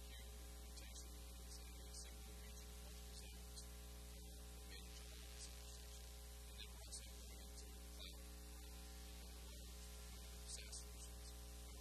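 Low, steady electrical mains hum with a stack of hum overtones and background hiss. Faint, irregular ticks are scattered through it.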